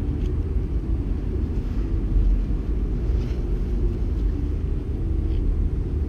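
Steady low rumble with a few faint clicks.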